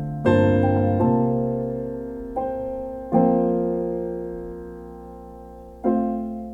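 Slow solo piano (or electric piano) music: sustained chords struck every second or so and left to ring and fade.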